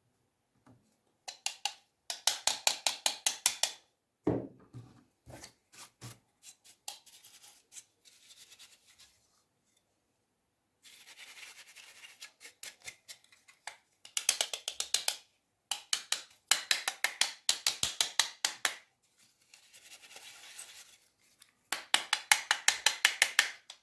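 Dust being scrubbed off a laptop's cooling fan: bursts of rapid scratchy strokes, about eight a second, each burst lasting one to two seconds with short pauses between, and a few low knocks about four seconds in.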